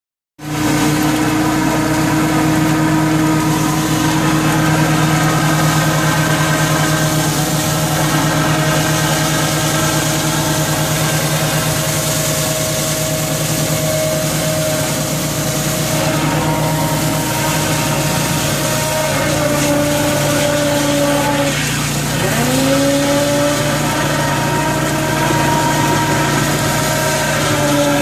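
Hydro jetter running while its high-pressure nozzle sprays inside a sump pump drain line, a steady engine-like drone that sounds like a boat in the water. In the latter part its pitch drops and recovers a couple of times.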